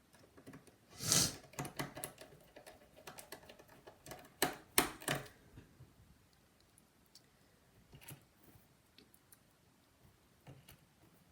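Small clicks, ticks and knocks of a laptop being reassembled: a screwdriver driving small Phillips screws into the plastic case. There is a louder knock about a second in and a cluster of sharp clicks around four to five seconds in, then fainter scattered ticks.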